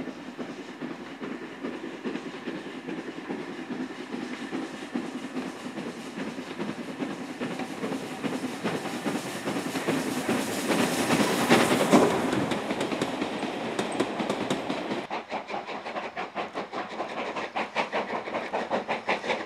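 Steam locomotive hauling a train at speed, its exhaust beats and rail noise building to a loud peak as it passes close about twelve seconds in. After a sudden change near three-quarters of the way through, a second steam train is heard working, with regular exhaust beats.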